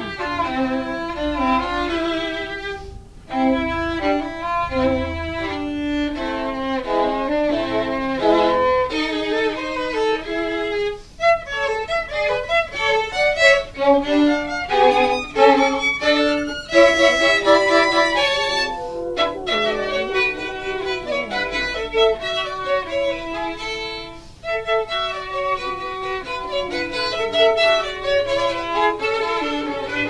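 Instrumental background music: a quick-moving melody of many short notes.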